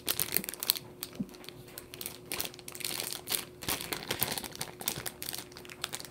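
Crinkling of a thin plastic packaging bag being handled around a squishy toy, in irregular crackles, loudest near the start and again about four seconds in.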